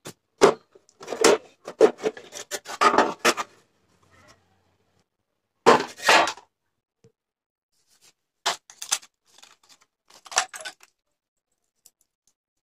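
Clatter and scraping of an old stereo cassette player's rusty sheet-metal cover being lifted off the chassis, then handling of its loose parts, in several short bursts with quiet gaps between them.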